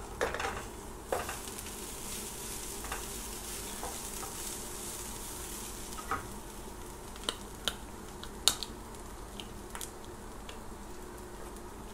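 Grated coconut frying in coconut oil in a pan with a steady sizzle, stirred with a wooden spatula that scrapes and clicks against the pan now and then.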